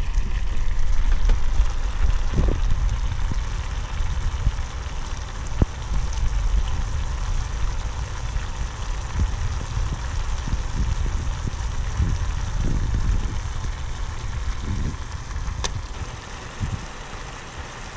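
Water heating in a small saucepan on an electric stove, with sticks of bubble gum in it, giving a steady crackling hiss of small bubbles. A low rumble runs underneath.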